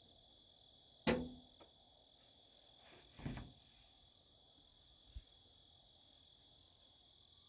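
Crickets trilling steadily in the background, broken by a sharp metallic knock about a second in, a duller clunk about three seconds in and a faint tick near five seconds, from hand work on a pickup truck's door latch and handle.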